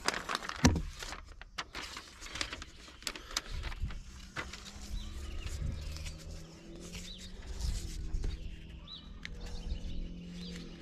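Handling of a self-adhesive foam closure strip: scattered clicks and rustles as it is peeled and pressed onto metal eave trim. A low steady hum comes in about four seconds in, with a few faint bird chirps.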